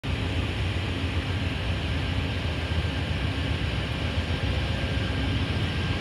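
Amtrak GE Genesis P42DC diesel locomotive running as it pulls a passenger train slowly along a station platform: a steady low rumble with no horn.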